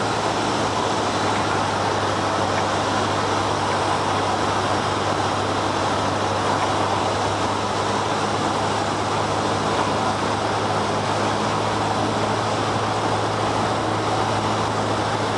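Cessna light airplane's engine and propeller droning steadily in flight, heard from inside the cabin, with a constant low hum under a broad rush of noise.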